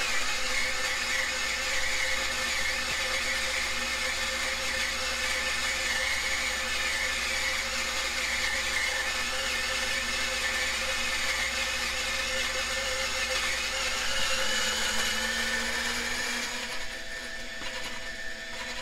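Turin SD40 single-dose coffee grinder running, its burrs grinding a dose of espresso beans with a steady whirring grind. About sixteen seconds in the sound drops and thins to a lighter motor hum.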